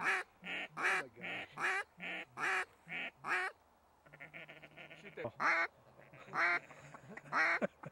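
Mallard duck call blown by a hunter: a quick string of about nine loud quacks, a second of rapid feed-call chatter about four seconds in, then three single quacks about a second apart.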